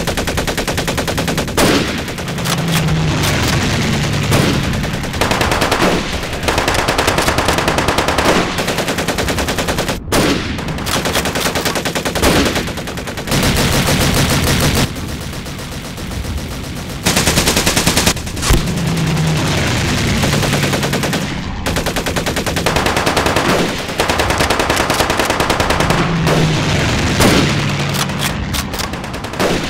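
Machine-gun and rifle fire: rapid overlapping bursts of automatic fire with single shots mixed in, almost without a pause.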